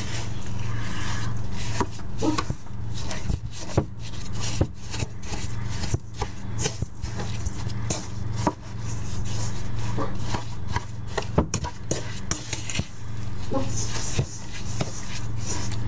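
Wooden spoon stirring a ground-beef meatloaf mixture in a stainless steel mixing bowl: irregular scraping, squelching strokes and knocks of the spoon against the bowl, over a steady low hum.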